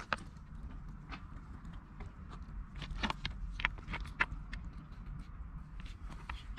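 Scattered light clicks and taps as thin bamboo skewers are pushed through raw fish and shrimp and knock against a wooden cutting board, over a steady low rumble.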